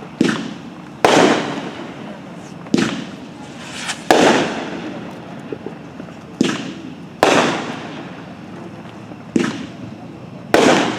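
Red Rhino Pyro World 50-shot fireworks cake firing: a string of sharp bangs, about eight in eleven seconds at uneven spacing, each trailing off briefly.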